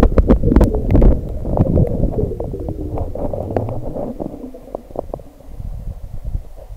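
Underwater sound from a submerged camera: a low rumbling wash of water with many sharp clicks and knocks. It is loudest in the first second and thins out and grows quieter after about four seconds.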